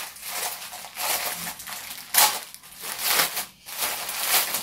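A plastic packaging bag being crinkled and pulled open by hand: a run of crackling rustles, loudest about two seconds in and again near the end.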